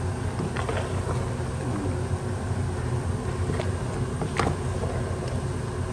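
Wooden spatula stirring a thick coconut-milk stew of prawns and vegetables in a stainless steel pot, with a few sharp knocks of the spatula on the pot, the loudest about four and a half seconds in. A steady low hum runs underneath.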